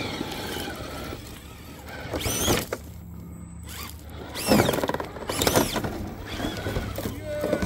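Electric motors and geared drivetrains of scale RC crawler trucks whining in three short bursts that rise and fall in pitch as the trucks climb over boulders, with a lower steady hum between the first two.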